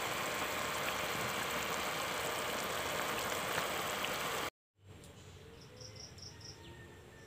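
Pork and a pig's trotter boiling hard in a pot: a steady bubbling hiss that cuts off about four and a half seconds in. After that, a quieter background with four quick high chirps from an insect or bird.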